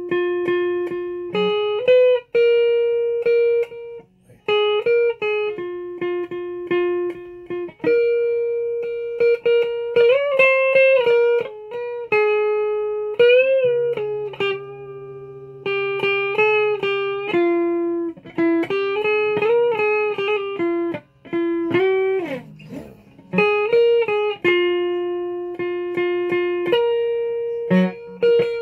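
A guitar played one note at a time: a slow melodic line of plucked notes, each ringing and fading, with a few notes bent up and back partway through and a brief scrape near the end.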